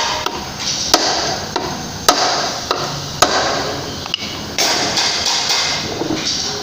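Hammer blows on the crankshaft end of a Honda PCX 150 engine: about six sharp strikes, the loudest about a second apart, over a steady background hiss. Knocking the crankshaft is the mechanic's trick against the engine's rough, growling running noise.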